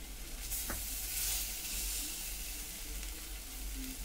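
Skinless chicken breast sizzling in a thin layer of oil in a non-stick frying pan on a low flame as the pieces are turned with a metal spatula; the sizzle swells about half a second in, with one light clink of the spatula against the pan.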